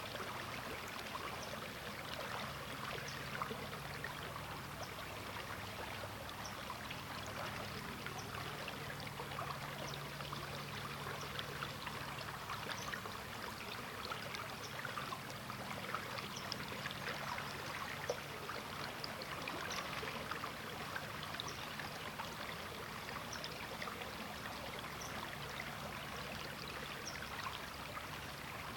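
River water flowing steadily, a continuous rushing with many small splashes and trickles.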